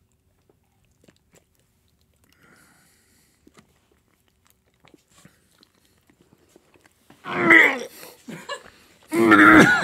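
Faint wet chewing clicks from a soft, slimy cod milt dumpling, then a man gagging with voiced groans, twice, about seven and nine seconds in. The gags are the loudest sounds.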